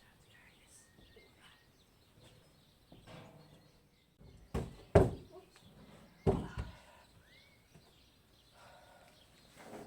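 A few sharp knocks: two in quick succession about halfway through, then a third a little over a second later, over a quiet background with faint bird chirps.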